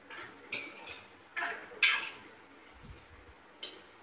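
Metal spoon clinking and scraping against a stainless-steel kadai while chopped tomatoes are stirred, in four short strokes, the loudest about two seconds in.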